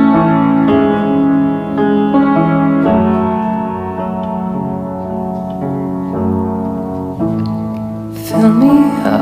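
Background music: a piano or keyboard playing slow sustained chords, with a singing voice coming in about eight seconds in.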